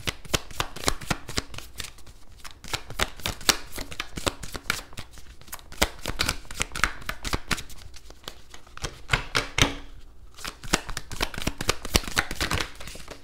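A deck of oracle cards shuffled by hand: a rapid, irregular run of soft card flicks and taps, with a brief pause about ten seconds in.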